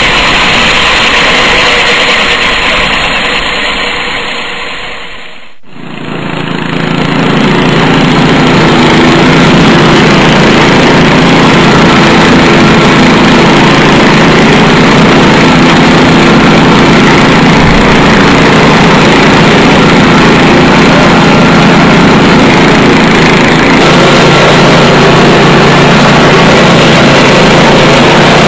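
EDCO concrete floor grinder running steadily, its horizontally rotating discs grinding a concrete slab. The sound dips briefly about five seconds in, then comes back as a steady, lower hum.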